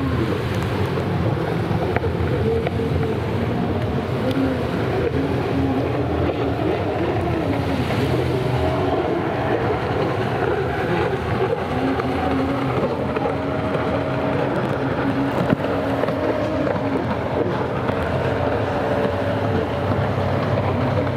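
Engines of several stand-up racing jet skis running at speed. Their whine rises and falls in pitch as the craft accelerate and turn, over the noise of rushing water.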